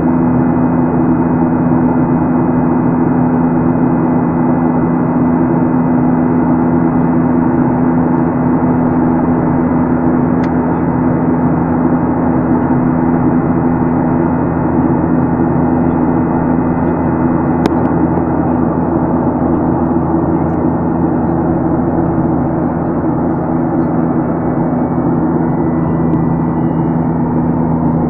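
Steady drone of a Boeing 737-800's CFM56-7B turbofan engines in flight, heard inside the passenger cabin: a low, even hum under a constant rush of air.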